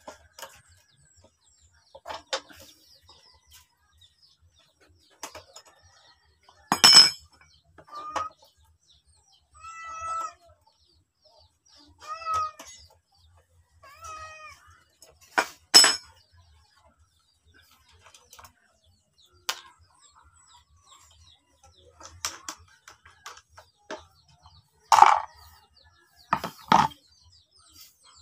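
Scattered ringing metal clanks and clicks of a socket wrench and engine parts being handled on a Loncin small petrol engine while its air cleaner is taken off; four sharp clanks are the loudest sounds. In the first half a cat meows four times, briefly.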